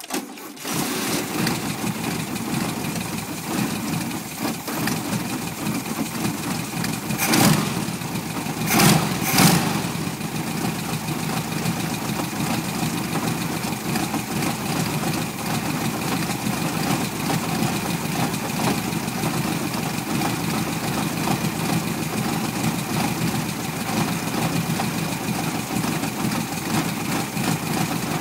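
1973 VW Beetle's air-cooled flat-four engine starting and then idling unevenly, a rough idle, with three brief louder surges about a third of the way in.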